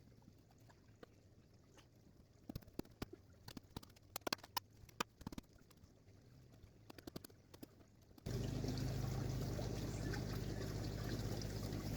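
Scattered light clicks and knocks, then, about eight seconds in, a sudden steady rush of running water, like water pouring and trickling through a ditch.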